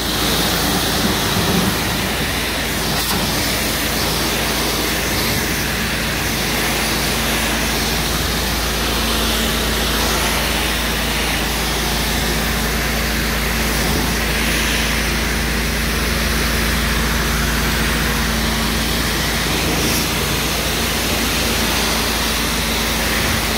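A pressure washer's high-pressure jet sprays and spatters onto stone patio slabs, rinsing them down. It makes a steady, loud hiss with a constant low hum underneath.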